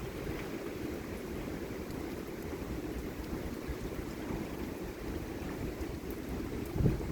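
Strong thunderstorm wind with heavy rain, a steady rushing that buffets the microphone. A short low thump comes near the end.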